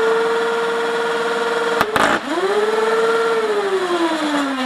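Nerf Rival Zeus flywheel motors spinning with a steady whine. About two seconds in, a short burst as the 12-ball foam salvo is fed through the flywheels in under half a second; the whine dips and climbs back. Near the end the flywheels wind down, the pitch falling steadily.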